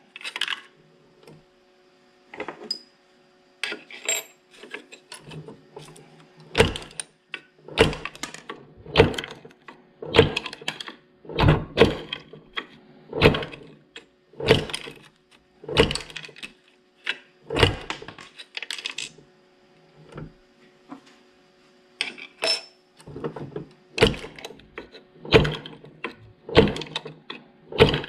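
Homemade murrini cutter chopping a glass cane into murrini slices: a run of short, sharp snaps, about one every second and a half, with a pause near the three-quarter mark.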